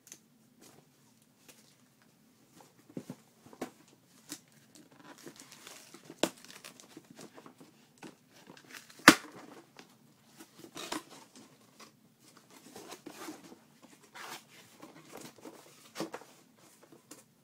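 Cardboard shipping box being opened by hand: packing tape tearing and cardboard and paper packing rustling and crinkling in irregular bursts, with scattered sharp clicks. The loudest is a snap about nine seconds in.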